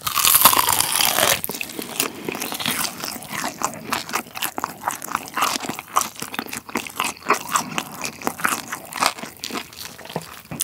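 Close-miked bite into a roasted pork hock (Schweinshaxe), a loud crunching tear of its crisp skin in the first second or so, then steady crunchy chewing. The skin is long-roasted and has gone hard.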